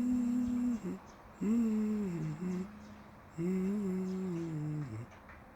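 A low hummed voice sounding three held notes, each about a second long, rising at the start and dropping away at the end, with a short extra note after the second.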